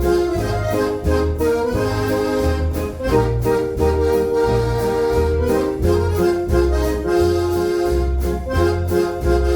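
Eminent F217 electronic organ playing a foxtrot with a Decap dance-organ sound: held accordion- and brass-like chords over a bass that steps about twice a second.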